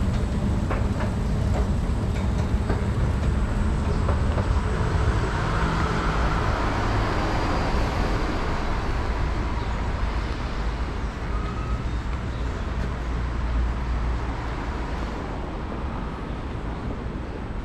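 Steady low rumble and hiss of station ambience: a running escalator and road traffic beyond the open station entrance. It swells a little in the middle and eases off slightly near the end, with a few light clicks in the first seconds.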